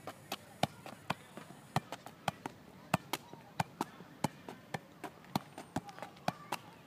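A boy juggling a football, the ball struck again and again by his feet in a quick, uneven run of sharp thuds, about three a second.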